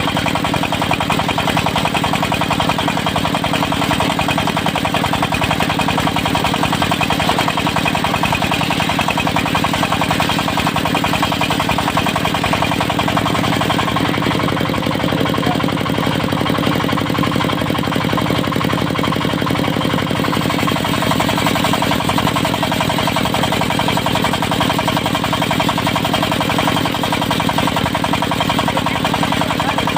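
Diesel engine of a portable circular-saw sawmill running steadily with a knocking beat, driving the saw blade.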